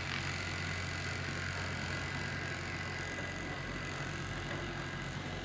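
Steady low hum with an even hiss: constant background noise of a small room, with no distinct events.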